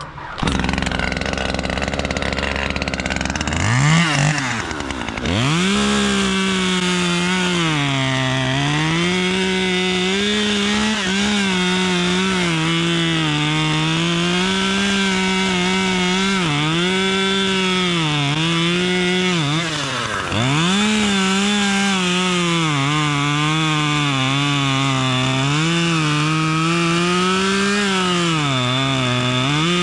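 Two-stroke chainsaw revving up about four seconds in, then cutting into wood at high revs, its pitch sagging under load and rising again over and over, most likely while cutting a felling notch. The revs drop sharply and pick up again twice, around five and twenty seconds in.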